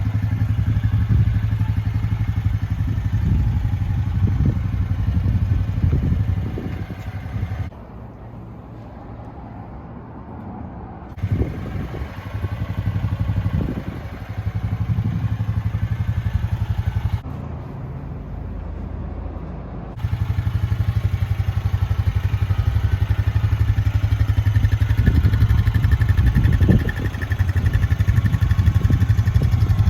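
Honda Rancher 420 ATV's single-cylinder four-stroke engine running steadily, with several abrupt changes where the sound drops quieter for a few seconds and then comes back.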